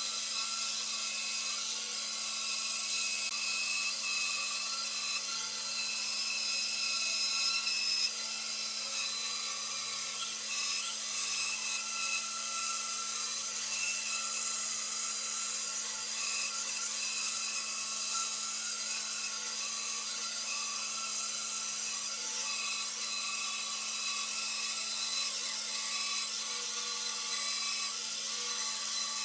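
A power tool running steadily as it works wood, with a constant motor hum and hiss that does not stop or change.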